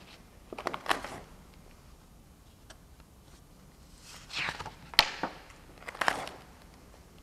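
Paper rustling as drawing sheets and sketchbook pages are handled and turned: a few brief swishes, with a sharp click about five seconds in.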